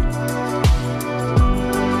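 Background music: a deep kick drum beating steadily about once every 0.7 seconds under sustained chords.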